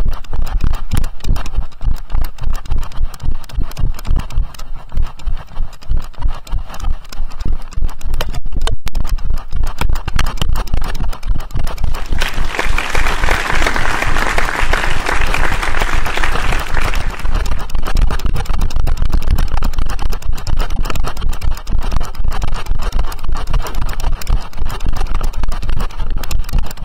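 A horse being ridden, heard from a camera on the rider: a dense, continuous rumble of hoofbeats, camera knocks and wind on the microphone. A louder rushing noise lasts about four seconds midway.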